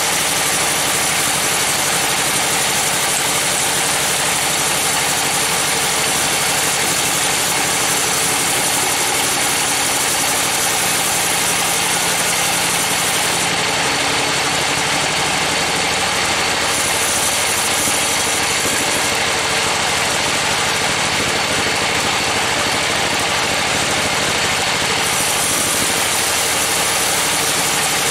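Log band sawmill running steadily, its blade ripping lengthwise through a trembesi (rain tree) log over the drone of the mill's engine. The high hiss of the cut thins briefly around the middle.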